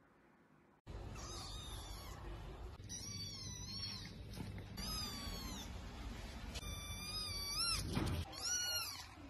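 A kitten mewing over and over in high, arching cries, starting about a second in. There is a short thump just after the eighth second.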